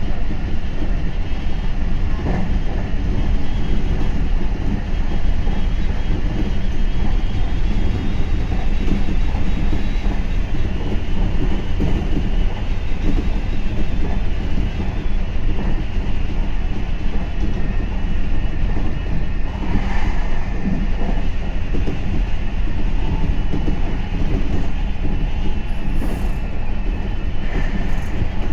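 Meitetsu 3500 series electric train running along the line, heard from inside the front car: a steady rumble of wheels on rail with a few faint clicks from the track.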